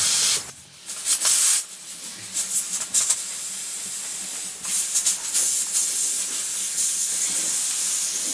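Steady hissing from steaming pots on a wood-fired metal improved cookstove, with a louder burst of hiss about a second in.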